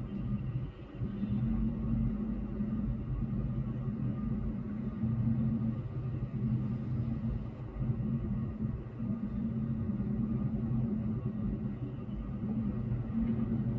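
Low, steady rumble of city traffic heard through a closed window, with a faint hum under it.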